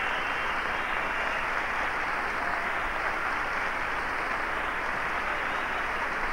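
Large audience applauding, a steady even clatter of clapping.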